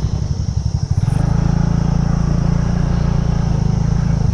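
TVS NTORQ 125 scooter's single-cylinder engine running under throttle on a rough track; about a second in, its uneven sound settles into a steady drone.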